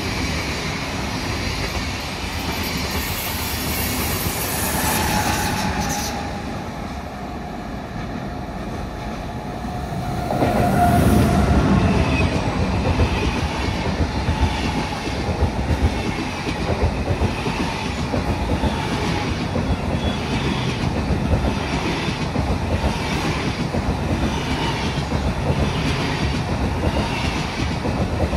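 Train rolling along the track, a brief high pitched tone about ten seconds in, then the wheels clacking over rail joints in an even rhythm for the second half.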